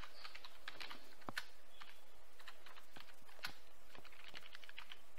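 Computer keyboard being typed on: scattered, irregular key clicks as a command is entered, over a steady background hiss.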